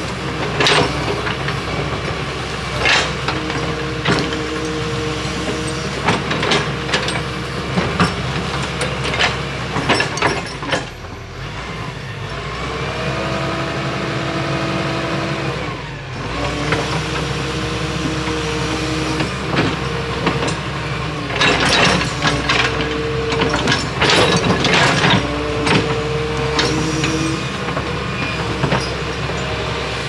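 Excavator's diesel engine running steadily under work, with whining tones that break off and return, one bending in pitch about halfway through, and repeated sharp clanks and knocks.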